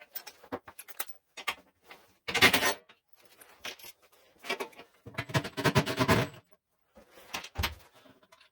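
Metal clinks, clicks and scrapes of a wrench working the bolts of a flip-top cart's pivot as they are loosened off. There is a short burst of scraping about two and a half seconds in and a longer rattling run of clicks about five seconds in.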